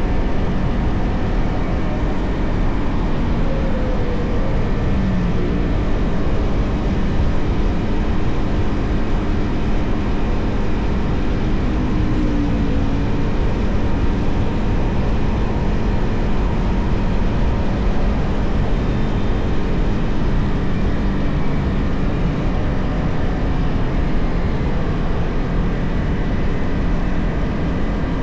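Yamaha XSR 155's single-cylinder engine and stock exhaust running at a steady cruise while riding, under a heavy, steady rush of wind noise.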